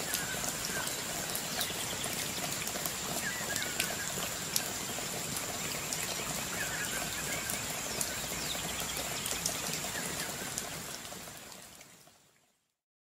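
Steady rush of flowing stream water with scattered small clicks, a thin steady high tone and a few short chirps; it fades out near the end.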